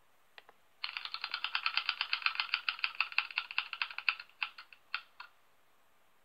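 Spinning name-picker wheel's ticking sound effect playing from a computer: a fast run of clicks that slows and spreads out as the wheel comes to rest, stopping about five seconds in. A single click comes just before the run starts.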